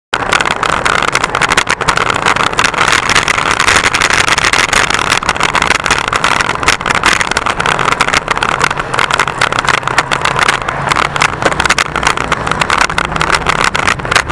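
Steady wind noise buffeting the microphone of a bicycle-mounted camera while riding along a road, with tyre and traffic noise; a low engine hum from traffic joins about halfway.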